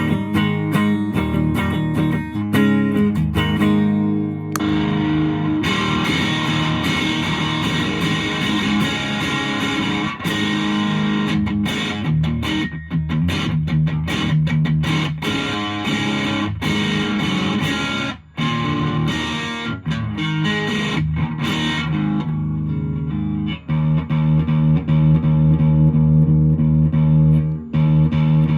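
Electric guitar, a Fender Jazzmaster, played through a 1985 Boss DS-1 distortion pedal into an amp and picked up by a phone from the amp. It plays a busy, bright passage with brief stops, then settles into held chords near the end.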